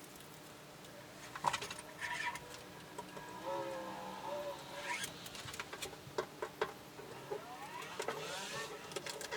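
Protective stickers being peeled off a metal tool chest, giving squeaky, ripping peels twice, amid light taps and clicks of handling.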